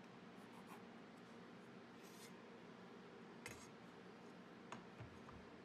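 Near silence: a pencil faintly scratching on a tiger maple board as a line is drawn along a square, with a few soft taps.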